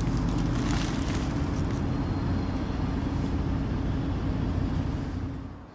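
Car cabin noise from a moving car: a steady low rumble of road and engine that cuts off suddenly near the end.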